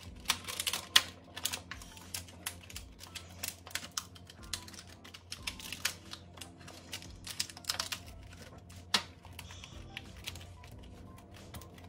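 Thin plastic pie-crust lid being pressed and snapped down onto a foil pie pan, crinkling and clicking irregularly as the rim is worked around by hand, with a sharper snap about a second in and another about nine seconds in. Faint background music underneath.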